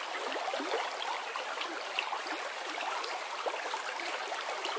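Small ripples of river water lapping at a muddy bank, a steady soft wash with many small splashes.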